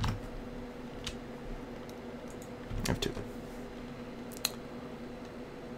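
A few separate keystrokes on a computer keyboard, spaced a second or more apart, as an equation is typed, over a faint steady hum.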